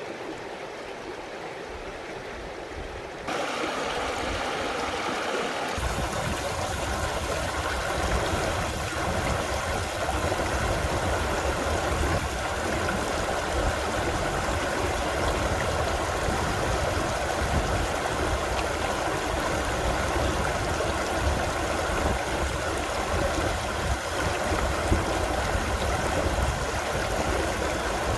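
Mountain valley stream rushing over rocks, a steady wash of water. It gets louder about three seconds in, and again near six seconds when a deeper rumble joins.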